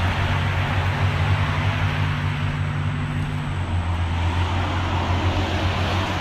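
Steady traffic noise with a low engine hum. Part of the hum drops away a little past halfway through.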